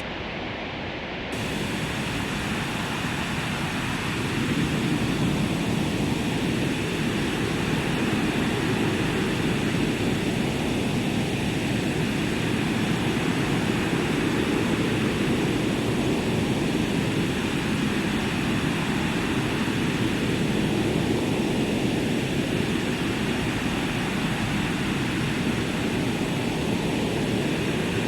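Synthesized white-noise weather ambience from Ableton Live, a steady rushing noise like wind or distant surf. It carries a slow filter sweep that comes round about every five seconds. The high end is shut for about the first second, then opens up.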